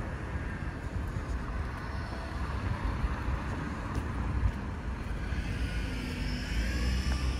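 Outdoor street traffic noise, with a vehicle passing near the end, over gusty wind rumble on the microphone.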